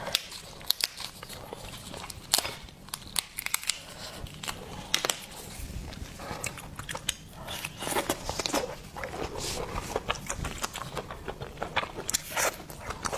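Close-miked eating: hard shellfish shell cracking and crunching, with chewing, heard as many short sharp clicks and crackles.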